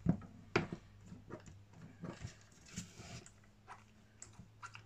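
Scattered light clicks and knocks of a 1/8 scale RC truggy chassis being handled, its suspension pushed down and let back up by hand.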